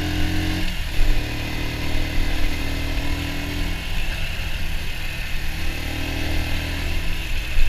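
Sinnis Bomber 125's air-cooled single-cylinder four-stroke engine running while the bike is ridden at street speed, with wind and road noise. The engine note shifts about a second in and again around four seconds in as the throttle changes.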